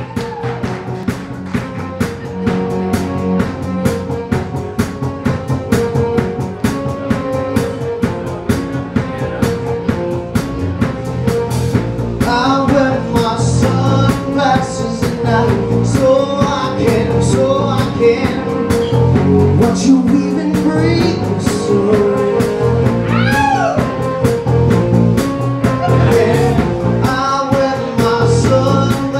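Live band of electric bass, drum kit and keyboards playing a steady rock beat, with a male lead vocal coming in partway through.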